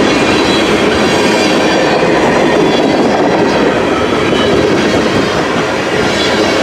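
CN freight train's cars rolling slowly past at close range: a steady, loud rumble and rattle of wheels on the rails.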